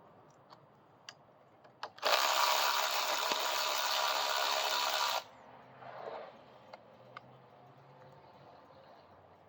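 A few light clicks of metal tools, then a small power tool runs steadily for about three seconds and stops suddenly, backing out the bolt that holds the broken brake lever.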